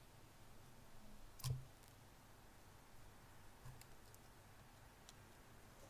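Mostly quiet handling of a hard drive being pried open with a knife. There is one sharp click about a second and a half in and a few faint ticks later.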